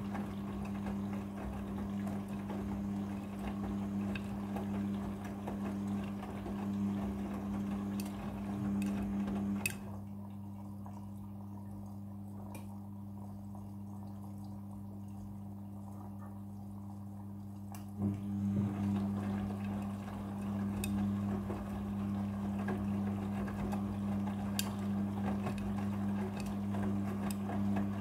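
Midea front-loading washing machine on its prewash: a steady hum with water rushing through it. About ten seconds in, a click cuts the water sound off while the hum goes on, and the water sound starts again about eight seconds later.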